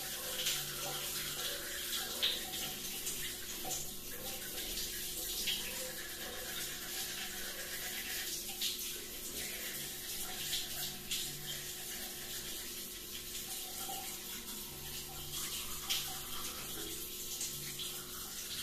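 Shower spray running steadily, water pattering down in a small bathroom, with faint irregular ticks.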